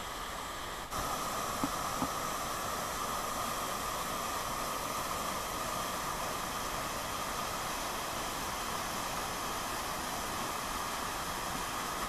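Steady rush of a waterfall and its pool, an even hiss of falling water, which steps up slightly in level about a second in.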